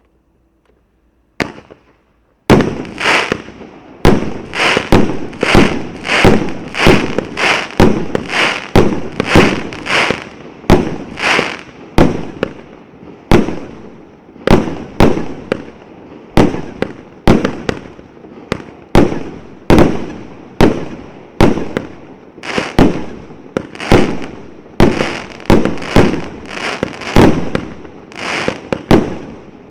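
A 120-shot consumer firework battery (Uralsalyut 'S Novym Godom') firing in a steady series of sharp reports, roughly two a second, each dying away quickly. The shots begin about two and a half seconds in, after a single faint crack.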